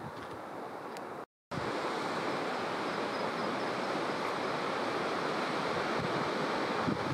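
Steady wash of sea surf on the rocky shore below, with wind buffeting the microphone in the first second. It breaks off briefly at a cut about a second and a half in.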